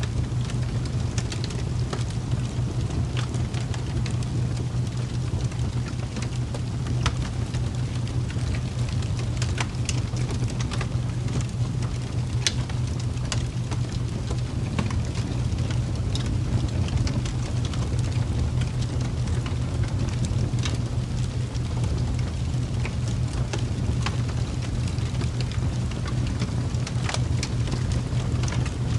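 Steady rain ambience: a constant noisy wash over a steady low rumble, with scattered sharp drop ticks.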